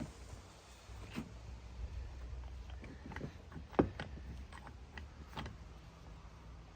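Faint, scattered clicks and knocks of objects being handled and set down, the sharpest about four seconds in, over a low steady hum.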